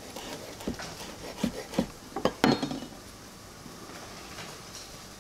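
Kitchen utensils and dishes clinking and knocking: a handful of irregular taps, the loudest about two and a half seconds in with a short ring, then quiet room tone for the last couple of seconds.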